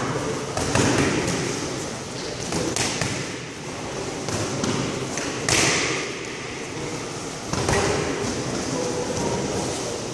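Boxing gloves punching focus mitts: a run of irregularly spaced slaps and thuds in quick combinations, the loudest about five and a half seconds in.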